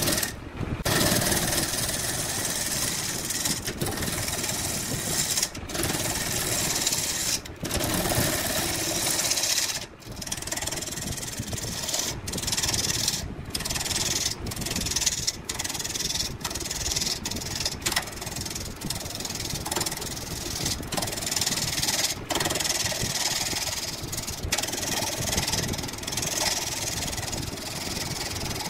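Woodworking power tools cutting and sanding wood: a harsh, hissing rasp that breaks off and changes every second or two.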